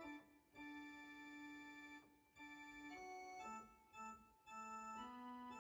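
Faint background music of slow, held keyboard chords, the notes changing about once a second.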